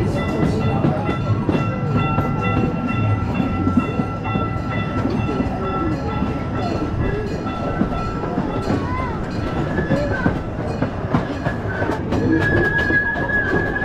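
A small replica park train rolling along its track, heard from its open passenger cars: a steady running rumble with small clicks from the wheels and rails. A thin high tone runs through the first half, and another, slightly higher one comes in near the end.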